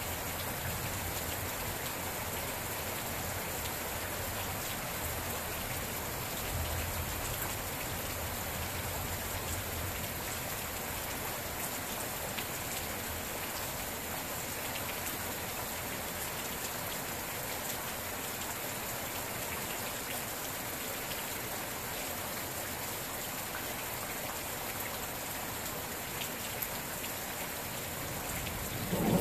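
Steady rain falling, an even continuous hiss of drops that does not change.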